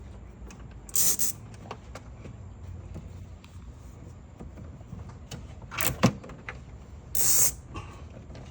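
Hands and tools working on truck parts during disassembly: scattered light clicks, with three short clattering bursts about a second in, around six seconds in (ending in a sharp click) and near the end.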